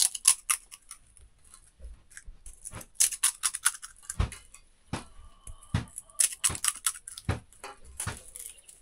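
Crisp fried pani puri shells being poked open with fingertips and set down on steel plates: a run of light, irregular cracks and clicks.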